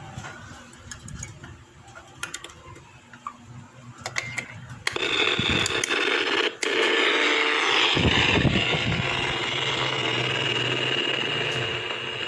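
A few small clicks of the plastic radio being handled. Then, about five seconds in, the AM/FM radio comes on suddenly with a loud hiss of static and station noise, which cuts out for a moment and carries on: the repaired power switch on the volume control is working again.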